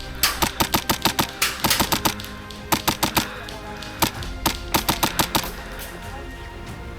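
Airsoft gun firing, sharp clicking shots in quick irregular strings of several shots each, with short pauses between strings.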